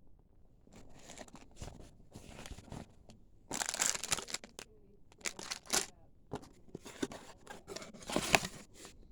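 Packaging being torn and crinkled open by hand: irregular bursts of tearing and crinkling with sharp crackles, the loudest stretches about three and a half seconds in and again about eight seconds in.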